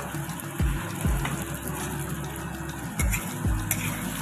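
Sliced bitter gourd, onion and tomato sizzling in a steel kadhai as a slotted spoon stirs them, under background music with a low thumping beat that comes in pairs of hits.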